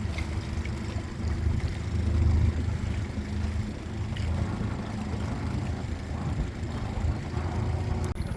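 A boat's motor running steadily, a low hum with a few steady tones.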